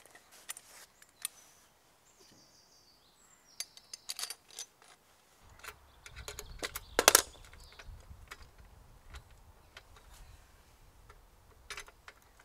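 Scattered clicks and knocks of aluminium chainsaw-mill frame parts and fittings being handled and adjusted during assembly, the loudest knock about seven seconds in.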